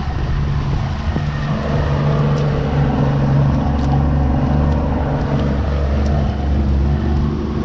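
A 90 hp Yamaha outboard motor running steadily at trolling speed, with a low, even hum over wind and water noise.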